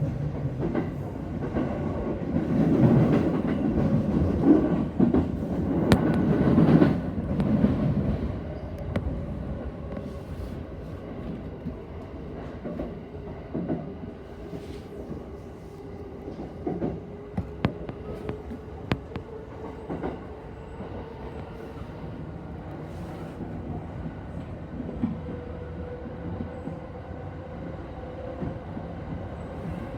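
Yokosuka Line electric train running on the rails, with wheels clicking over rail joints. The first eight seconds are louder; after that the run settles to a steadier, quieter sound with a faint whine that rises slightly in pitch.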